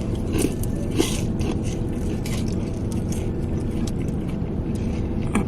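Steady low rumble of an old work truck's engine running, heard inside the cab, with a few faint clicks and rustles.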